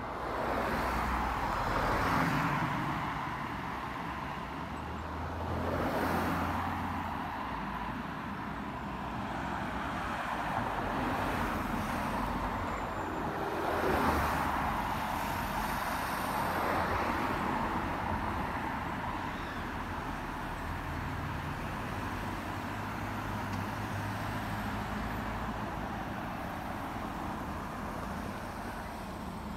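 Road traffic passing close by: cars and a van drive past one after another, their tyre and engine noise swelling as each approaches and fading as it goes.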